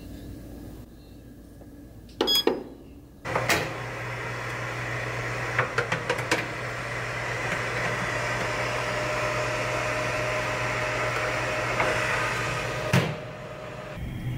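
Countertop air fryer oven starting with a short beep, then its convection fan running with a steady whirring hum. A few light metal clicks come about halfway as a wire basket is set into it, and there is a thump near the end.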